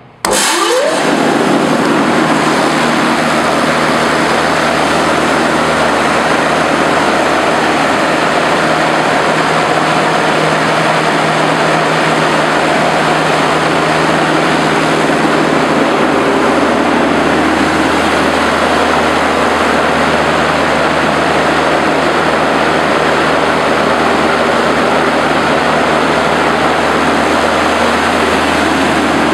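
Dayton Air Cannon 36-inch industrial fan (model 2ATC8), a four-blade cast-aluminium propeller on a 2 HP three-phase motor, switched on at its rotary disconnect: a click, then it spins up within about a second and runs at full speed with a loud, steady rush of air over a low motor hum.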